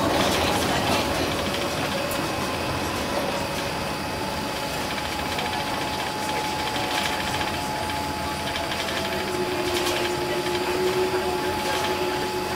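Cabin noise inside a Boeing 787-9 taxiing on the ground: a steady engine and rolling hum with a thin steady whine, a second, lower whine joining about three-quarters of the way through, and a few faint clicks.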